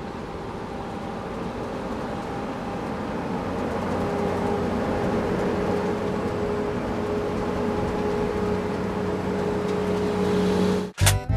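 Truck engine running steadily and slowly growing louder, with a steady tone joining about a third of the way in. It cuts off abruptly just before the end, when music starts.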